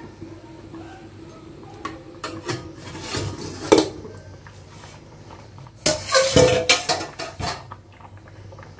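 Aluminium lid knocking and scraping against the rim of an aluminium kadai as it is lifted off, with a sharp clink a little before four seconds in and a louder run of metal clatter from about six seconds in.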